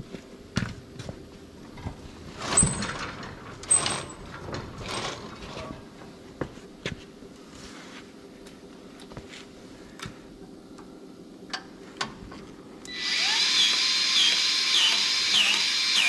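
Scattered handling knocks and clicks, then about 13 seconds in a battery-powered grease gun runs for about four seconds, its motor whine dipping with each pump stroke. It is pumping grease into a front steering spindle fitting that is plugged and won't take grease.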